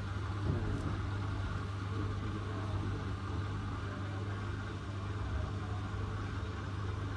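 Hotpoint WT761 Ultima washing machine running with a steady hum, on its second intermediate spin at 600 rpm after the first rinse.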